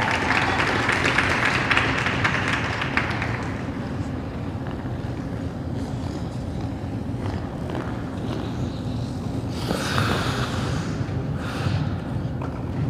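Applause dies away over the first three seconds. Then comes the steady low hum of an indoor ice rink, broken near the end by two short hissing scrapes of skate blades on the ice.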